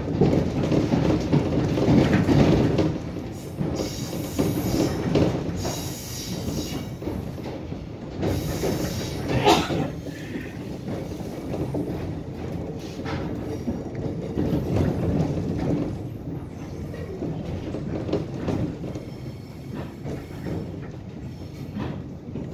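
Korail Class 311000 electric multiple unit running over the tracks, heard from inside the carriage: a steady rumble of wheels on rail with clickety-clack over joints and points. A sharper clatter comes near the middle.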